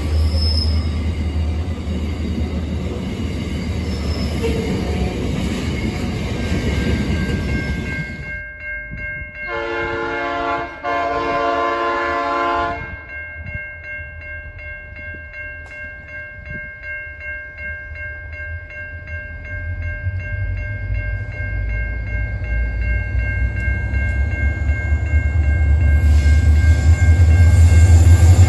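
Freight hopper wagons rolling past on the rails with a steady rumble and clatter. After a cut, a diesel locomotive's horn sounds in two blasts. Level-crossing warning bells then ring steadily while the locomotives approach with a rising low rumble, loudest near the end.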